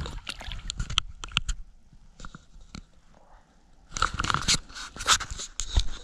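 Scattered clicks, knocks and scrapes as a fisherman handles his gear and shifts about in a kayak, busiest about four seconds in.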